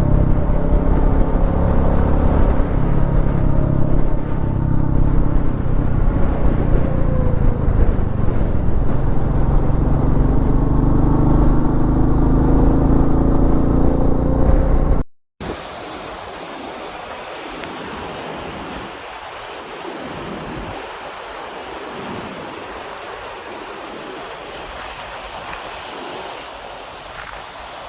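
Royal Enfield Meteor 350's single-cylinder engine running under way, with heavy wind noise on the microphone. About halfway through it cuts off abruptly to a quieter, steady rushing noise.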